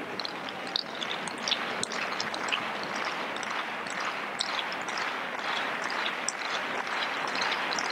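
Tennis crowd applauding after a point, a dense patter of many hands clapping that grows a little louder about two seconds in.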